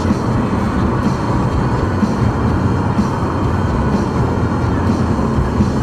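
Steady road and engine noise inside a car's cabin while cruising at freeway speed: an even low rumble with tyre hiss and no distinct events.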